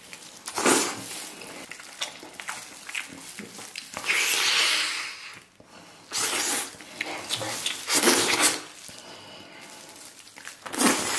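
Close-miked eating sounds: biting, sucking and chewing meat and tendon off a braised lamb leg, in loud wet slurps that come in separate bursts a second or two apart, the longest about four seconds in.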